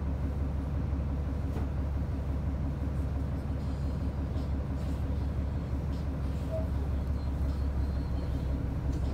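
City bus heard from inside the cabin while under way: a steady low rumble of engine and road noise, with a few faint knocks.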